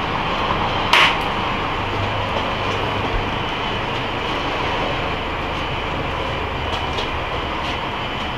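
Steady rushing background noise, with a single sharp knock about a second in.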